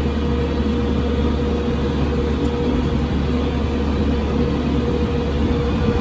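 New Holland T5060 tractor's diesel engine running steadily under the cab, with a low drone and a thin steady whine above it.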